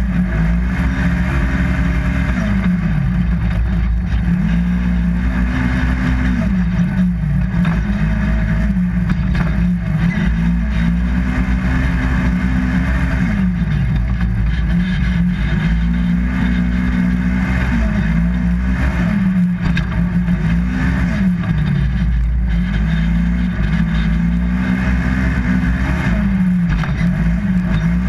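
2015 Polaris RZR XP 1000's parallel-twin engine running hard while racing. Its pitch climbs, holds high and drops again every few seconds as the throttle goes on and off.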